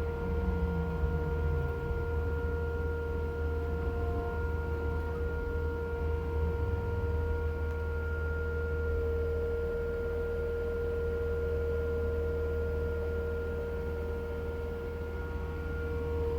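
Skid loader running steadily: a low engine drone with a steady high whine laid over it, holding the same pitch throughout.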